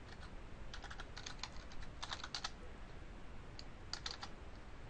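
Typing on a computer keyboard in short bursts of keystrokes as a login password is entered, then a few more key presses near the end.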